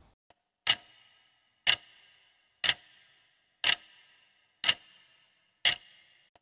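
Clock-tick sound effect counting down the seconds of a quiz answer timer: six sharp ticks, one a second, each with a short bright ring.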